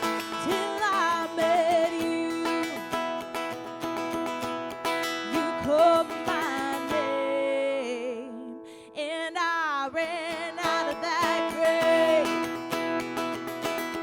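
Live worship music: strummed acoustic guitar with a singer holding notes with vibrato, a brief quieter gap between phrases a little past the middle.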